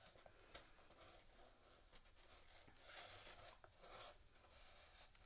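Faint scraping, rustling and small clicks of an empty cardboard roll tube being chewed and pawed by a husky, a little louder about three seconds in.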